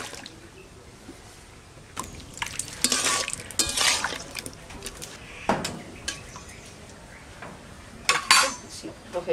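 Metal tongs clinking and scraping against an aluminium pan as chicken feet are stirred in hot water to scald them for skinning, with splashing of the water. The clatter is busiest a few seconds in, with a single knock in the middle and another short burst near the end.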